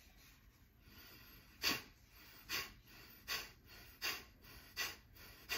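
A man doing Kapalbhati breathing: six short, forceful exhales about three-quarters of a second apart, each driven by a contraction of the stomach.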